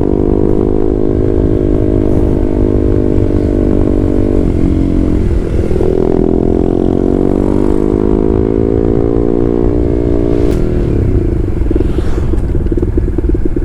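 Exhaust note of a Honda CB150R single-cylinder engine through an aftermarket WRX GP6 silencer on a stainless Blue Moon header. The engine runs steadily, its pitch rises about five seconds in and eases down slowly, then drops to a lower steady note near the end.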